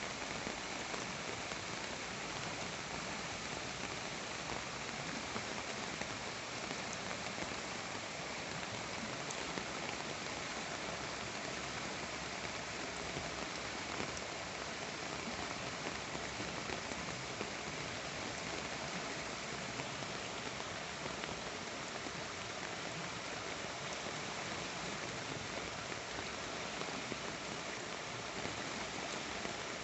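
Steady rain falling, an even hiss with a few faint drop taps.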